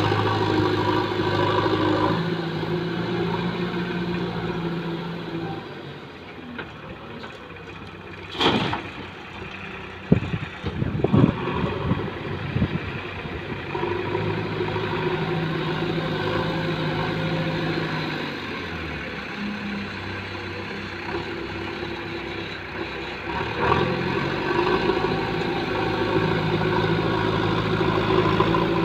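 JCB backhoe loader's diesel engine running, its revs rising and falling several times as the loader works its front bucket and dropping back towards idle between. A few sharp knocks and clatters come between about eight and thirteen seconds in.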